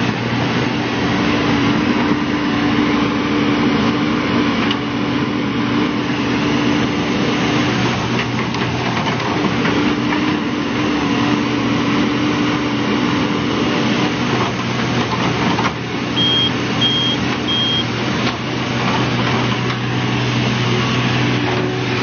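New Holland E215B hydraulic excavator's diesel engine running steadily. About three-quarters of the way through, three short high beeps of a warning alarm sound.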